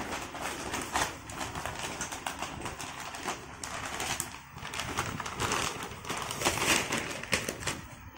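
A puppy pawing, chewing and lying on a plastic bag of dry dog food, the bag crinkling and rustling in irregular bursts; it dies down near the end as the puppy leaves it.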